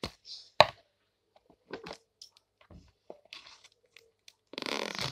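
Plastic Play-Doh tub and lid being handled and prised open: scattered sharp clicks and knocks, the loudest about half a second in, then a longer crinkling, tearing noise near the end.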